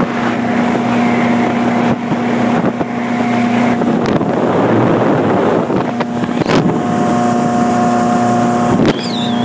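Old ski boat's engine running steadily at speed, a steady hum over the rush of wind and water. For a couple of seconds around the middle the hum drops back under the wind and water noise, then returns.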